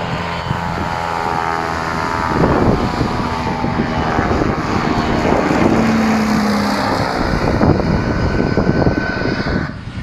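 Small aircraft flying low overhead, its engine tone falling in pitch as it passes.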